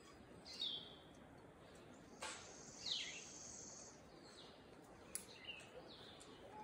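Birds calling faintly: a series of short chirps, each falling in pitch, with a faint sharp click about two seconds in and another about five seconds in.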